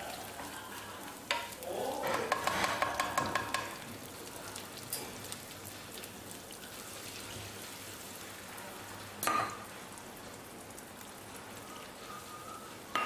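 Red curry paste frying in oil in a pan: a steady sizzle, with a louder stretch of spatula stirring and scraping about two seconds in and a brief knock of the spatula later on.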